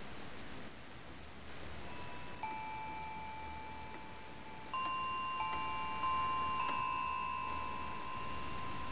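Electronic keyboard playing a bell sound: single sustained notes struck one at a time from about two seconds in, each left ringing so that they overlap into a slow chiming texture.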